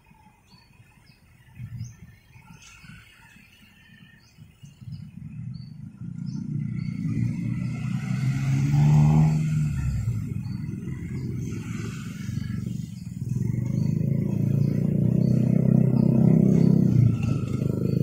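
Motorcycles, scooters and a car driving across a railway level crossing, their engines growing louder as they pass close, with the loudest passes about nine seconds in and again near the end. Before the traffic builds up, a bird chirps repeatedly in short high notes.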